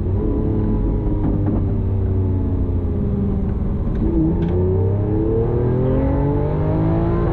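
Lamborghini Aventador S's naturally aspirated V12 under hard acceleration in Corsa mode, heard from inside the cabin. The engine note climbs steadily from about four seconds in, then drops sharply near the end as the single-clutch gearbox shifts up.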